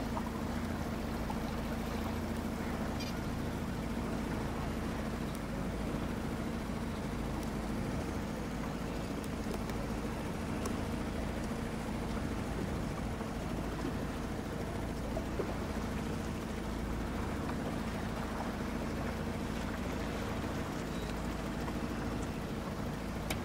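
A boat motor running steadily: a constant hum over a steady hiss of water.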